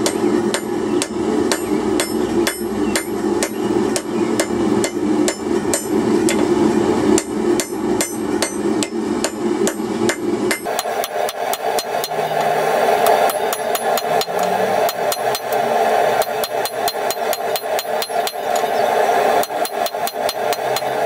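Hand hammer striking hot twisted steel on an anvil in a steady run of blows, flattening the twist and forging it round to give an alligator-skin texture. The blows come about two a second, then faster about halfway through, over a steady noise that shifts higher at the same moment.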